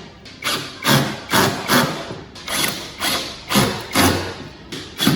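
A run of irregular knocks and thumps, about two a second, like hand work on a boat in a workshop.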